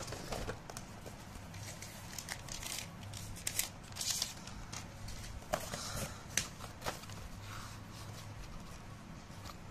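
Cardboard packaging and a paper slip being handled: rustling, sliding and crinkling, with scattered light taps, over a faint steady low hum.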